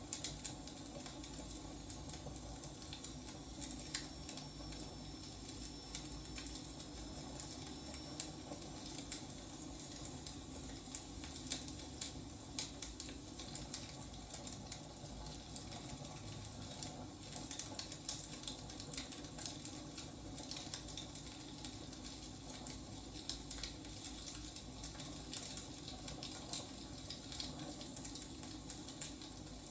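Wood fire burning, crackling steadily with irregular sharp pops over a soft hiss. A faint high whistle comes and goes about three to eight seconds in.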